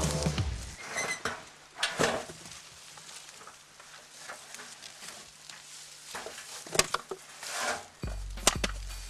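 Scattered rustles and light knocks, a few seconds apart, over a faint steady hum. Didgeridoo music cuts out in the first second, and a low rumble comes in near the end.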